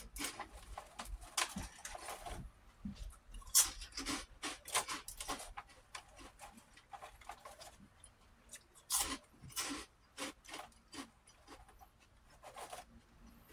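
Close-up crunching and chewing of crisp prawn crackers, in irregular clusters of sharp crackles.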